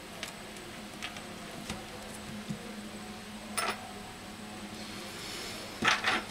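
Hands handling a disassembled smartphone and its small parts on a silicone repair mat: scattered light clicks and taps, a sharper clatter about three and a half seconds in and a louder burst of clicks near the end, over a low steady hum.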